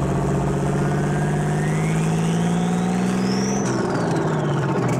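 Logo sound effect: a steady, engine-like low drone under a thin whistling sweep that rises for about three and a half seconds, then turns and falls as the drone shifts.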